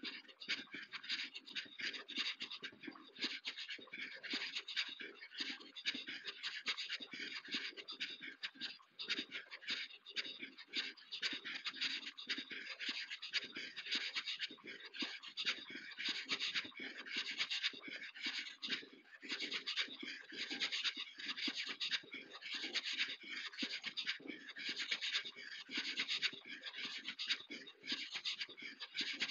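Footsteps crunching on a loose path surface: a continuous, dense, irregular scratching crunch.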